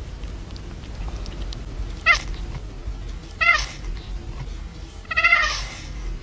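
Domestic cat meowing three times, about a second and a half apart, the third call longer and louder than the first two.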